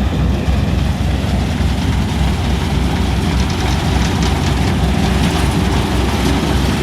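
Combine harvester running steadily while harvesting soybeans: a constant deep engine hum with machinery noise over it.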